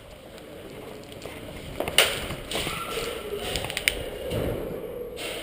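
A sharp crack about two seconds in, then a few lighter clicks and knocks over a shuffling rustle of movement.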